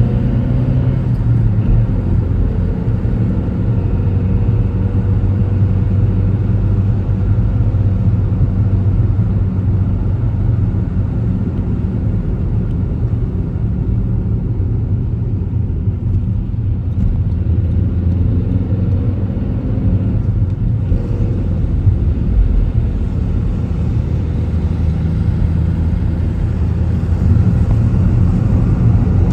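A car driving, with a steady low rumble of engine and tyre noise. The engine note glides in pitch a couple of times as the car changes speed.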